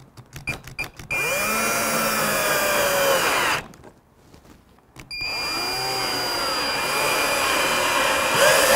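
Cordless drill-driver driving screws through a steel corner bracket into pine board without pilot holes. There are a few clicks at first, then two runs of the motor whine, about two and a half and three and a half seconds long, whose pitch sags and rises as the screw bites. A few loud knocks come as the second run ends.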